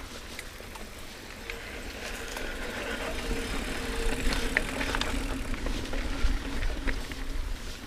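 Mountain bike riding down a dirt singletrack, heard from the handlebars: a low rumble of tyres on dirt and wind on the camera, with scattered clicks and rattles from the bike. It grows louder from about two seconds in as the bike picks up speed.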